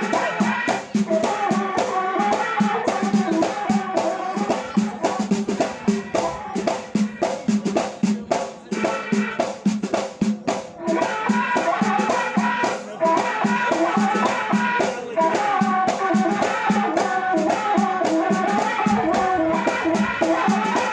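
Allaoui folk music of eastern Morocco: drums and rattling percussion keep a fast, even beat under a sustained melody.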